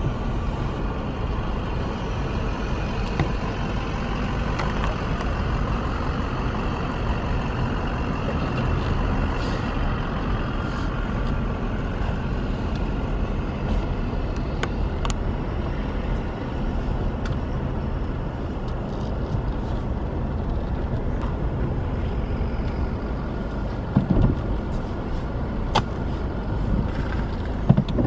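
Steady road and engine noise of a car being driven, with a few short knocks and clicks near the end.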